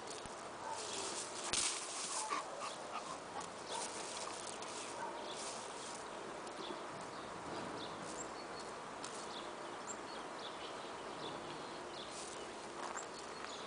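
Two dogs play-fighting on gravel: scuffling and gravel crunching under their paws and bodies, with a few short vocal sounds from the dogs. The scuffling is loudest in the first couple of seconds.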